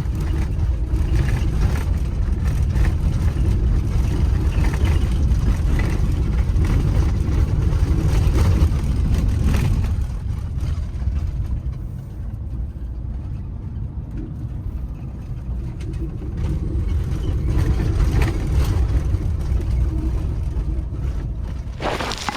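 Winnebago Revel 4x4 van driving on a gravel logging road: a steady low rumble of engine and tyres with scattered knocks from the rough surface, easing off for several seconds about halfway through.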